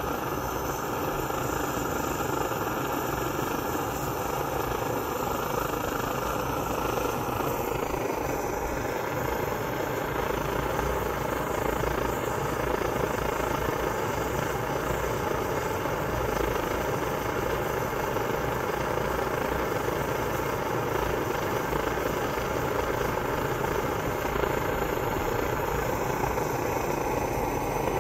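East German Barthel benzine (petrol) camping stove burning at full power, its burner making a steady rushing flame noise, while the water in the pan on it comes to the boil.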